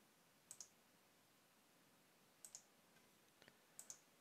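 Faint computer mouse clicks, each a quick double click, about three times over near silence.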